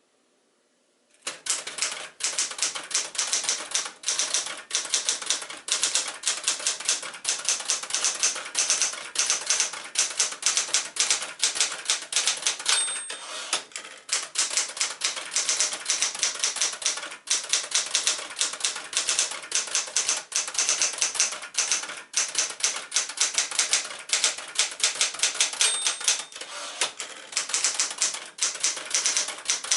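1973 Smith-Corona Sterling manual typewriter being typed on at a brisk, steady pace: a rapid clatter of key strikes, with a short high ring twice, about halfway through and near the end. The typing starts about a second in.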